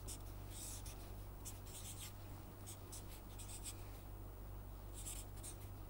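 Marker pen writing on paper: short, faint scratchy strokes in quick clusters, over a steady low hum.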